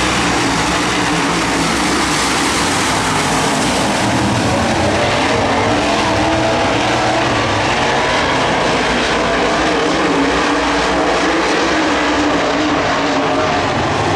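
A pack of UMP Modified dirt-track race cars with V8 engines running together, the engine pitch rising and falling as the cars rev and lift.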